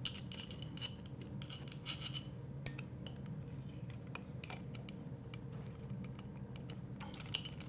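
Faint rubbing and scattered light clicks of a plastic cam chain guide being slid down into an aluminium engine cylinder beside the cam chain, over a low steady room hum.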